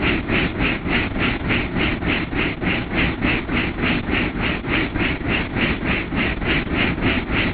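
Helicopter in flight heard from inside the cabin: a steady engine and rotor rumble with a regular pulsing beat of about four a second.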